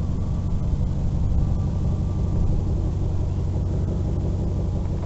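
Pickup truck driving, with a steady low rumble of engine and road noise.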